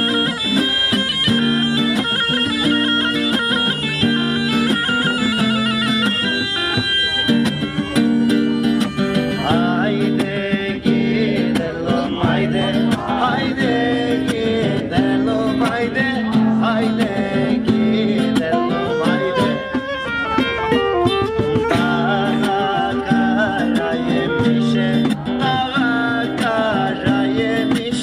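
Live folk music: a tulum (Black Sea bagpipe) plays a reedy melody over a drone with strummed acoustic guitar; about ten seconds in a man starts singing into a microphone over the guitar.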